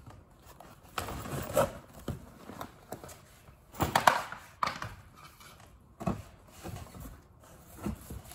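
Irregular knocks, clunks and rustling as tools and packaging are shifted about while rummaging through a cardboard pallet box, with the loudest clatter about four seconds in.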